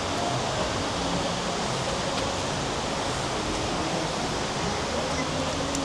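Steady rushing noise of heavy rain falling, mixed with the roar of the waterfall close by.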